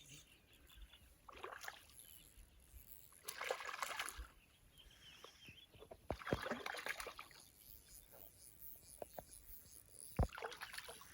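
Water splashing and sloshing in four short bursts as a hooked trout is played and brought in, with a few sharp knocks in the second half.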